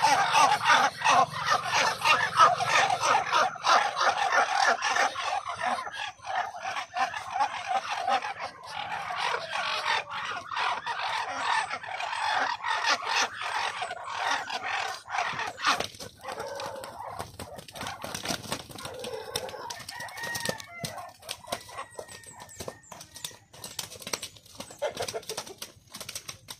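Farm poultry calling in a dense chorus of short clucks and calls, with many short clicks among them. It is busiest at first and thins out and grows quieter about halfway through.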